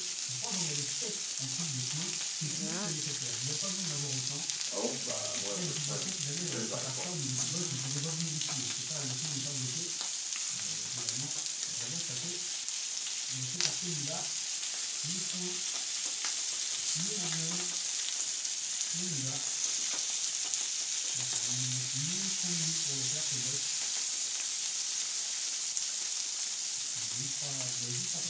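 Sausages and vegetables sizzling steadily on a hot plancha griddle while the sausages are brushed with sauce.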